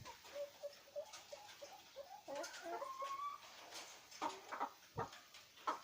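A chicken clucking softly in short low notes, with one longer rising call near the middle. A few sharp knocks come in the second half.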